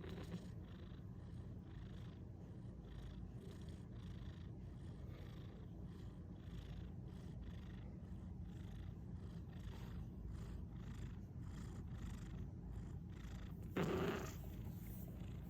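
A sleeping pet snoring in a steady rhythm of breaths, with one louder, brief sound near the end.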